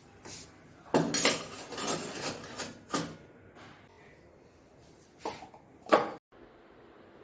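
Kitchen dishes and utensils being handled and set down on a counter. A run of clattering and clinking lasts about two seconds and ends in a sharper knock, and two more knocks follow near the end.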